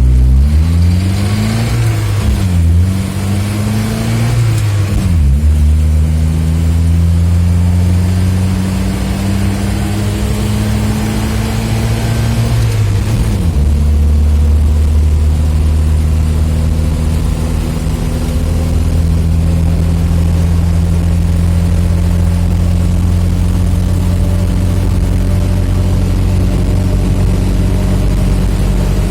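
UAZ-469 engine pulling hard through the gears. Its note climbs and drops sharply at each shift, about 3, 5 and 13 seconds in, then holds a nearly steady pitch at cruising speed.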